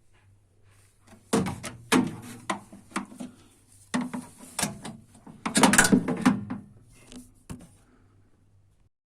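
A run of sharp knocks and clatters of hard objects being handled, bunched about a second and a half in and again around five and a half seconds in, over a faint low hum.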